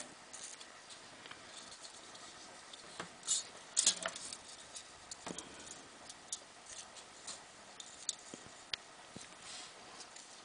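Scattered light scratches and small clicks of thin solar cells and tabbing wire being handled and set down on a work surface. The loudest scratches come about three to four seconds in.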